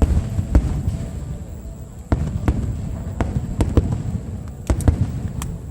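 Aerial fireworks bursting: about a dozen sharp booms and bangs at irregular intervals over a low rumble, with several coming in quick succession near the end.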